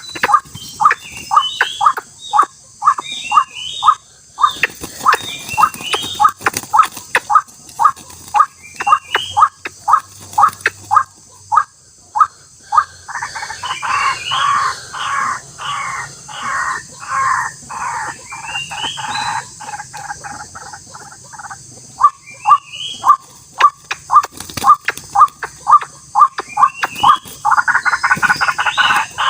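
White-breasted waterhens (ruak-ruak) calling: a long run of short, harsh notes repeated about two to three times a second, swelling louder in stretches, with higher rising notes in between.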